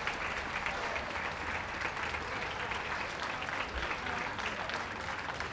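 Ringside audience applauding steadily, many hands clapping at once.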